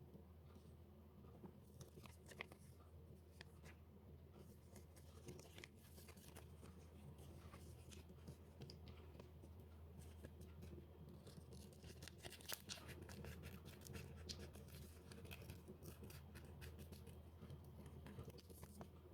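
Faint paper-crafting handling sounds: light scratching strokes and small scattered clicks and taps of paper and tools, busier in the second half, over a low steady hum.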